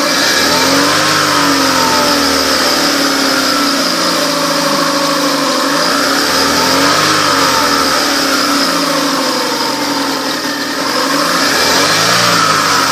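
A 2008 Chevrolet Aveo's E-TEC II 16-valve four-cylinder engine is idling and is revved up and let back down three times: about a second in, midway, and near the end.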